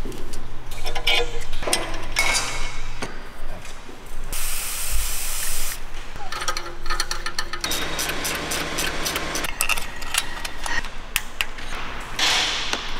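Metal hand tools clicking and clinking against engine fittings, with a short hiss of WD-40 spray about four to five seconds in.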